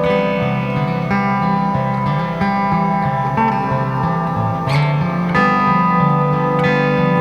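Guitar playing a sustained chord passage between sung lines, notes ringing on with occasional picked attacks.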